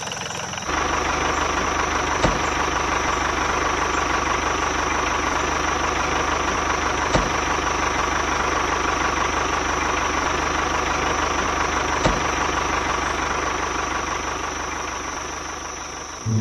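A tractor engine running steadily. It comes in under a second in, with a faint click about every five seconds, and dies down near the end.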